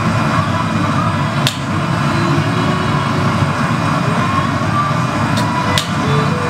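Steady low roar of a glassblowing studio's gas furnace burners and blowers, with three sharp metal clicks from the glassblower's hand tool on the blowpipe and hot glass, one about a second and a half in and two close together near the end.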